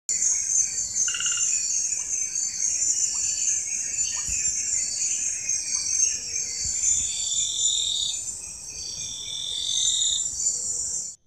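Night chorus of insects and frogs: a dense, steady, high-pitched insect trill with repeated pulsing calls beneath it. It cuts off abruptly near the end.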